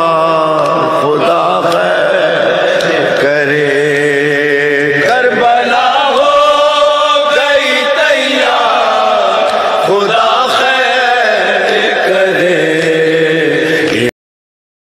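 A man chanting a noha, an Urdu mourning lament, in long wavering held notes with no instruments. The voice stops abruptly about a second before the end, leaving silence.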